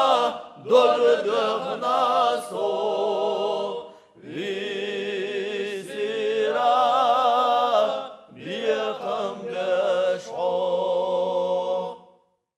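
Chechen male vocal ensemble singing unaccompanied, several voices together in long held notes with vibrato. The singing falls into short phrases with brief breaths between them and stops just before the end.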